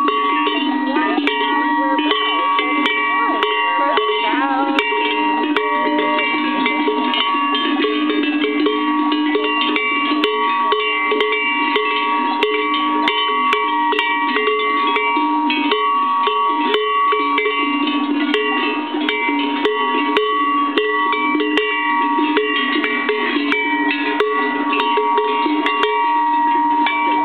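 Swiss alpine cowbells worn by a herd of cows. Many bells of different pitches clank and ring together in a dense, overlapping jangle.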